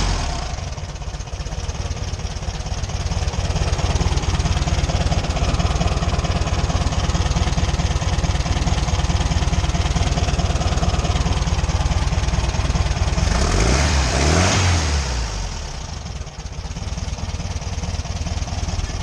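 VW Fusca's air-cooled flat-four engine idling steadily, revved up and back down once about two-thirds of the way through.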